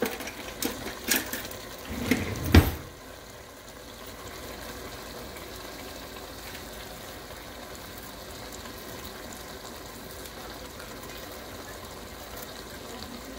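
Turnip curry simmering in a steel pot, a steady bubbling hiss. In the first three seconds there are several knocks and clatters, the loudest about two and a half seconds in.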